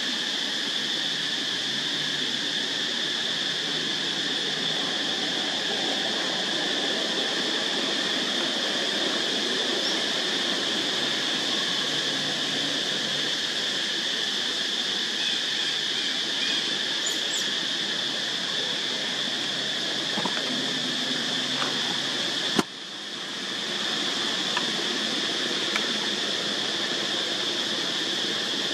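Steady high-pitched insect chorus, an even drone that never breaks, interrupted once by a sharp click about two-thirds of the way through.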